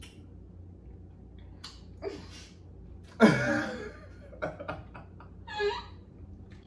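Two people laughing, with a loud burst of laughter about three seconds in and shorter laughs after it.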